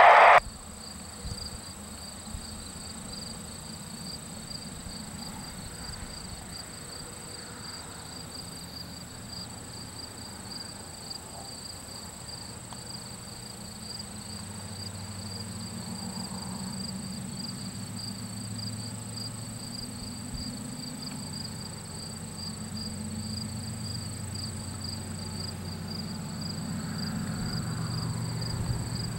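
Distant GE ES44C4 diesel locomotives of an approaching freight train: a low engine rumble that grows louder from about halfway through. Over it a steady, high, rapidly pulsing insect trill.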